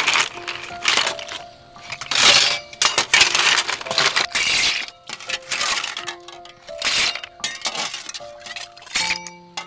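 Cooked sea snail shells clinking and clattering against a metal pot in repeated short bursts as they are stirred, over background music with held notes.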